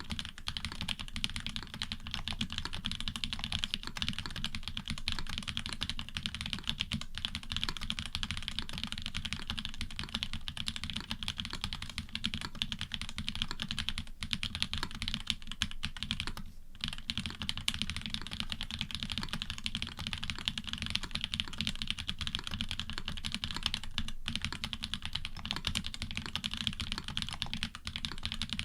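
Continuous fast typing on a custom Orion v2.5 mechanical keyboard with hybrid switches (Cherry bottom housings with Cream tops and stems), an FR4 plate, PE switch foam and plate foam, and GMK keycaps: a dense, steady stream of keystroke clacks with a brief pause about 16 seconds in.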